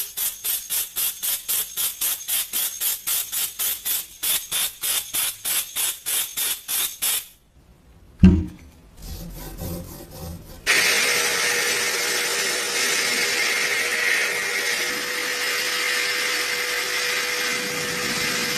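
Hand tool scraping over metal in quick, even strokes, about three or four a second, then a single thump. A power tool then starts and runs steadily with a constant hum, as in workshop rust removal.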